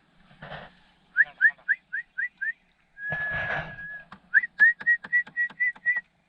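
Whistling: a run of short rising whistled notes, then one held note about a second long, then a quick series of short notes.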